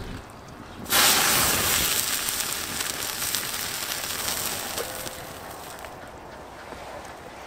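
Open wood fire under a hanging cast-iron goulash kettle, crackling and hissing. It comes in suddenly and loudly about a second in, then slowly fades.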